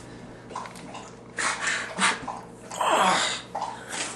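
A man gasping and spluttering in short noisy bursts, with a louder sneeze-like burst and a falling groan about three seconds in: a reaction to something up his nose.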